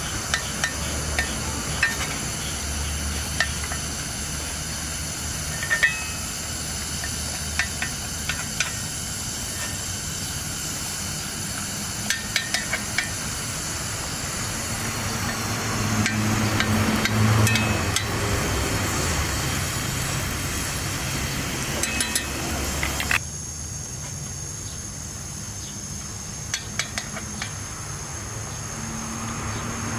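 Kuku sabzi (herb and egg frittata) sizzling in oil in a pan over a gas burner, with scattered clinks of a metal spoon poking and tapping at it. About 23 s in, the sizzle cuts off and a knife taps a few times on a wooden cutting board, slicing pickles.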